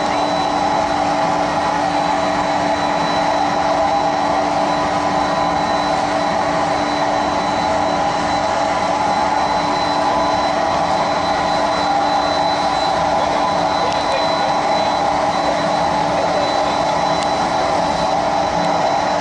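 Steady, unchanging drone of a warship's machinery heard on deck, with a constant low hum and a thin high whine.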